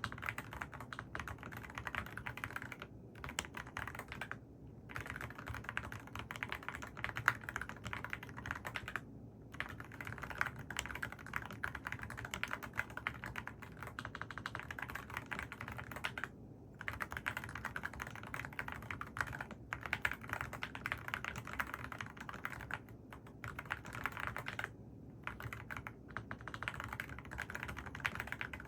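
Typing on a mechanical keyboard with AKKO Rosewood switches: a rapid run of key clacks, with a few brief pauses.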